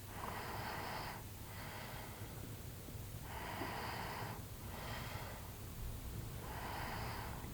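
A sleeping person breathing heavily close to the microphone: three breaths about three seconds apart. Each is a longer rush of air followed by a shorter one.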